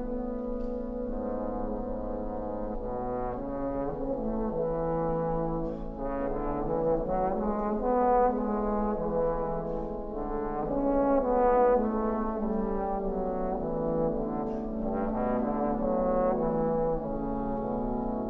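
A trombone choir playing slow, held chords in several parts, with low bass notes under the harmony; the chords swell louder about eight and again about eleven seconds in.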